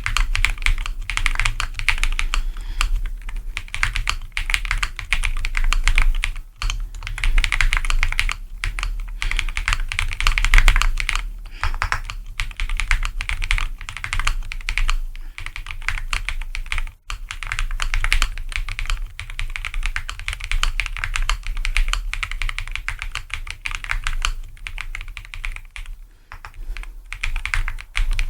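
Mechanical keyboard fitted with Akko Creamy Yellow Pro V3 linear switches being typed on in continuous fast runs of keystrokes, with short breaks about six and seventeen seconds in.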